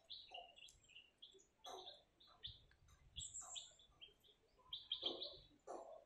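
Faint bird chirping: many short, high chirps from several birds, scattered throughout, with a few louder calls about two seconds in and near the end.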